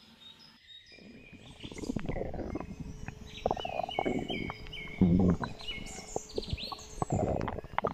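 Comic sound-effects track: birds chirping in a forest background, overlaid with wet squelching and stomach-gurgling sounds in several bursts, the loudest about five seconds in.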